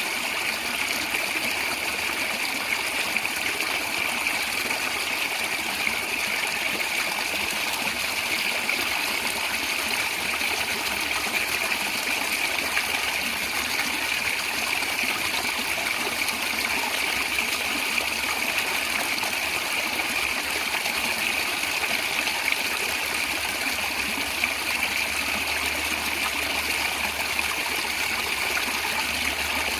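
A natural stream gurgling and trickling steadily.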